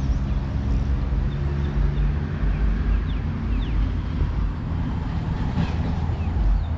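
Steady low rumble of road traffic, with faint short high chirps over it.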